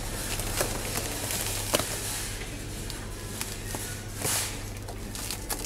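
Quiet supermarket background: faint footsteps and small clicks and rustles over a steady low hum, with a soft swell of noise about four seconds in.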